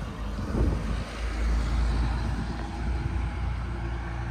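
Semi truck's diesel engine pulling away with a deep rumble that swells about a second in and then slowly eases as the truck moves off.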